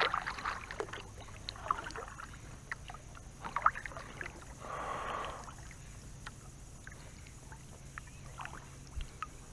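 Canoe paddling on calm water: the paddle dipping and pulling through the water with a soft swish about five seconds in, and scattered small clicks and drips in between.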